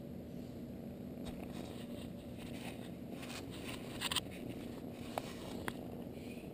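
Handling noise at a small camera: faint rubbing and scraping against it, with a few light clicks and a short cluster of sharper clicks about four seconds in.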